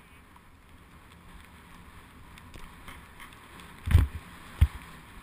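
Snowboard sliding over snow, a faint steady rush of wind and snow, broken by two sharp thumps about four seconds in, half a second apart.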